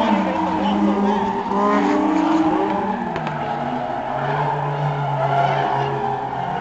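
Two drift cars, one a Toyota MR2, sliding around a track: engines revving up and down with tyres squealing and skidding. The engine note drops about three seconds in and then holds steadier.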